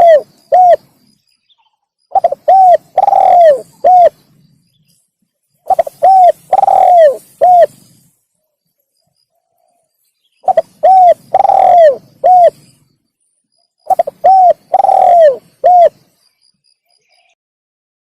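Spotted dove (tekukur) cooing its song, sounded as a lure call: the tail of one phrase at the start, then four full phrases, each of two short coos, one long coo falling in pitch and a final short coo, with pauses of one to three seconds between.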